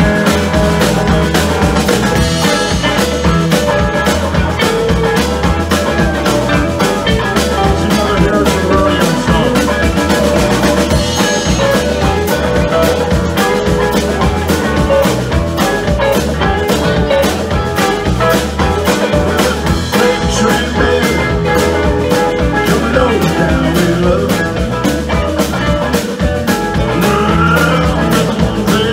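Live rock band playing with electric guitars, keyboard and a drum kit keeping a steady beat.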